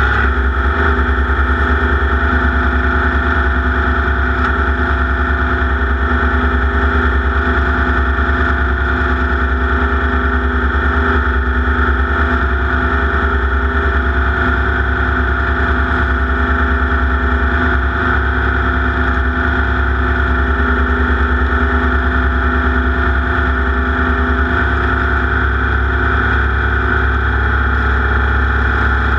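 Off-road race car's engine running hard at high, fairly steady revs, heavy and distorted as on an overloaded onboard microphone.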